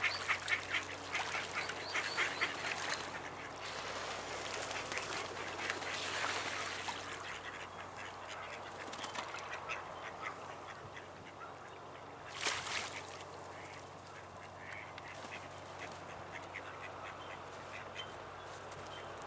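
Mallard ducks calling: a rapid run of short, quick-repeated calls at the start, then scattered single calls.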